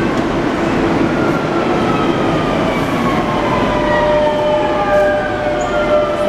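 Whine of an inverter-driven electric motor over a steady noisy rumble: several tones glide slowly down in pitch as it slows, then start to rise again near the end.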